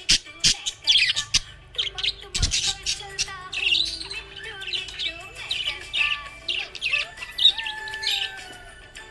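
Budgerigar chirping and squawking: a rapid, irregular string of short, high calls.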